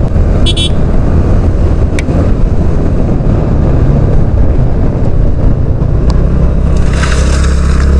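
Motorcycle engine running steadily while riding, a constant low engine drone with wind and road rush over the microphone.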